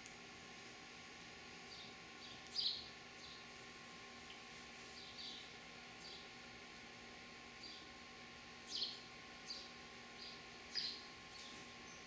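House sparrows chirping: about a dozen short chirps at irregular intervals, three of them louder than the rest, over a steady high hiss.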